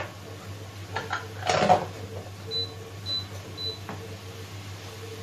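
A spatula knocking and scraping against a frying pan of sliced courgettes and potatoes, with a brief louder clatter about a second and a half in. Three short high beeps follow, about half a second apart.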